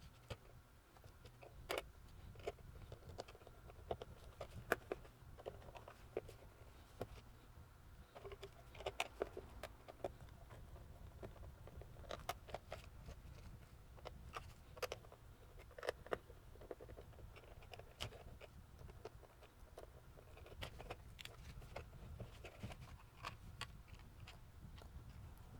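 Faint, irregular clicks and light taps of small plastic and metal parts of a handheld digital multimeter being handled on a workbench, over a low steady hum.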